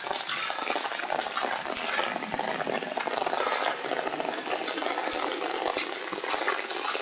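Heavy rain pouring down, a steady dense hiss of countless drops hitting close by.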